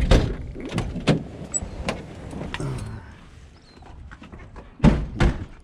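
A string of sharp knocks and clicks, then two loud thumps close together near the end.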